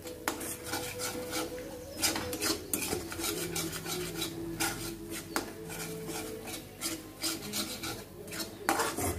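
Steel spoon stirring and scraping a thick masala paste around a metal kadhai, with irregular scrapes and light knocks against the pan. The ground masala is being roasted in oil on a low flame until the oil separates.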